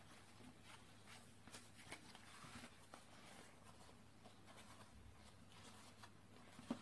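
Near silence, with faint papery rustles and crackles as thin, dry yufka sheets are torn into pieces by hand.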